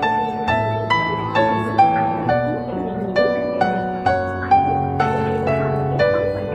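Background music: a gentle melody of held notes, struck about two a second over a bass line.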